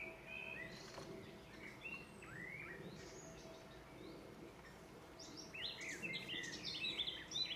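Small songbirds chirping and singing in short calls, growing busier in the last two seconds.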